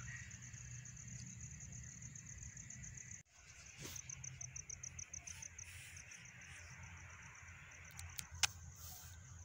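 Cricket-like insect chirping in a high, rapid, evenly pulsed trill that drops out briefly about three seconds in; a single sharp click near the end.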